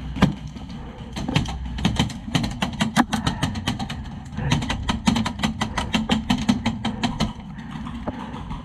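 HPA airsoft rifle, powered by a Polarstar Jack engine, firing sharp shots in quick strings of about six a second, with short pauses between the strings.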